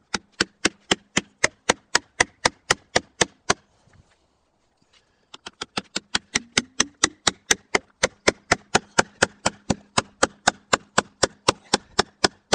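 A hammer driving a beeswaxed oak dowel through a mortise and tenon joint in an oak post: rapid, even blows about four a second, then a pause of nearly two seconds a few seconds in, then another long run of blows.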